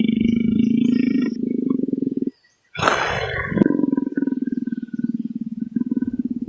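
A big cat growling: two long, low, rumbling growls with a rapid pulsing texture, broken by a sudden short gap a little past two seconds in.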